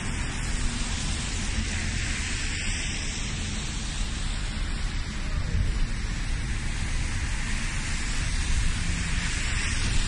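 Traffic on a wet city street: a steady hiss of car tyres on wet tarmac over a low rumble, swelling about halfway through as another car goes by.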